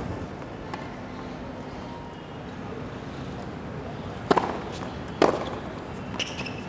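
Tennis ball struck by rackets during a point: two sharp hits about a second apart, a little over four seconds in, with a weaker knock near the end, over steady low background noise.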